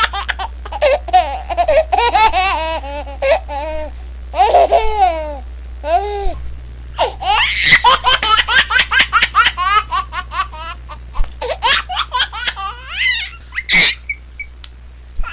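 Baby laughing hard in quick repeated bursts of giggles and squeals, with high gliding shrieks in between.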